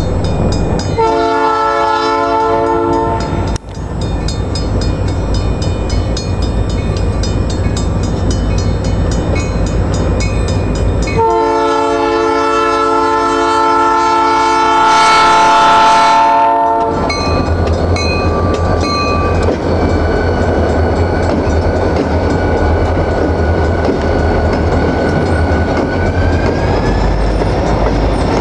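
Union Pacific GP40-2 locomotive's multi-chime air horn sounding a short blast about a second in and a longer blast of about five seconds from around eleven seconds. After that, the locomotive and its string of freight cars rumble past at close range.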